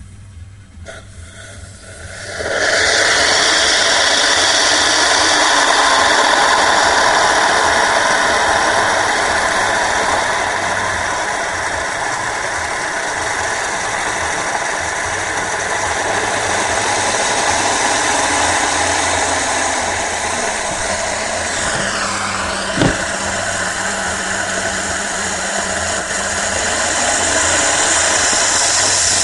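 Homemade Tesla disc turbine starting up on about 85 psi steam: a loud steady rush of steam hissing through and out of the turbine begins abruptly about two and a half seconds in as the rotor spins up. A little over twenty seconds in, a pitch sweep dips and recovers, with a single sharp click.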